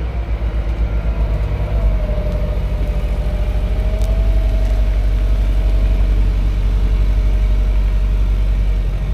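Motor vehicle engine idling close by: a steady, even low running with a faint steady tone above it.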